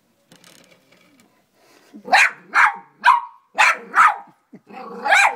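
A dog barking in a quick series of about six sharp barks, starting about two seconds in, after a couple of seconds of faint scratchy rustling.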